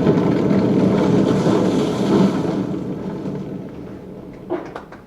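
Steady rushing wind-and-rain storm noise with a low rumble, fading away over a second or two, then a few faint knocks near the end.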